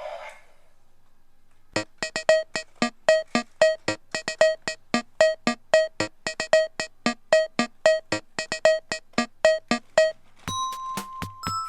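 Background music: a synthesizer keyboard tune of quick, short staccato notes, about four a second. Near the end it gives way to a chiming, bell-like melody.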